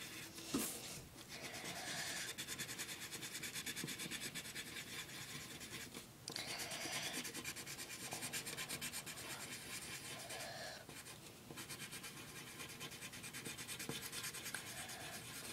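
Colored pencil shading on paper: rapid back-and-forth scribbling strokes, several a second, with short breaks about half a second in, around six seconds in and around eleven seconds in.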